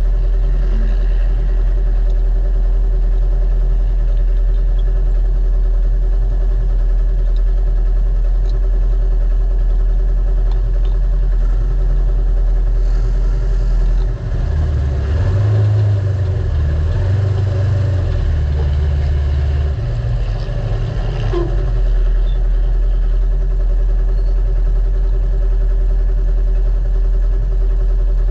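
Race UTV's naturally aspirated engine idling with a steady low drone. Its low note rises and falls for several seconds about halfway through.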